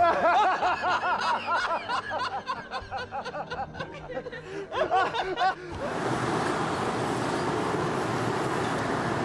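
Loud, hearty laughter from a man, rapid and repeated, for about six seconds. It cuts off suddenly into a steady wash of street traffic noise.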